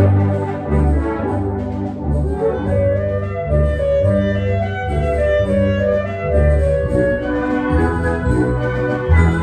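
A large concert wind band playing, with brass and woodwinds over a section of bowed double basses holding heavy sustained bass notes.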